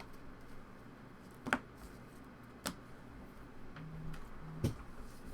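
Three short, sharp clicks spread over a few seconds, as trading cards are handled and sorted during a pack break.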